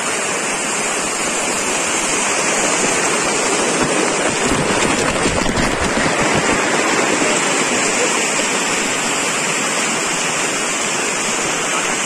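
Shallow waterfall stream rushing over rocks, a steady noisy rush of water. For a few seconds in the middle it grows louder, with more low rumble in it.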